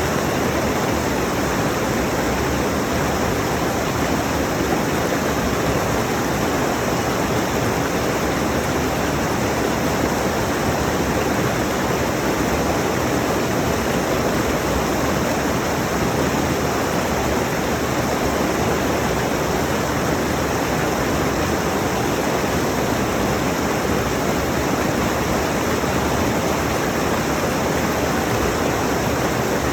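Rushing mountain stream: a steady, even rush of water.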